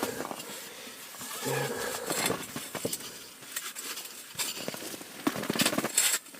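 Irregular small clicks, knocks and scraping of fishing gear being handled and assembled, busiest near the end.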